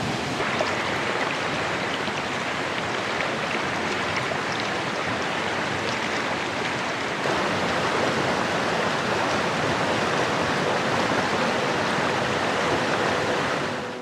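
Rushing water of a small waterfall and stream cascading over rocks, a steady dense rush that gets louder about seven seconds in.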